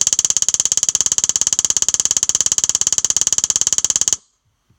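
Electronic keyboard's castanets drum voice, pitch-bent up almost to maximum, played as a rapid, even stream of sharp clicks that cuts off suddenly about four seconds in.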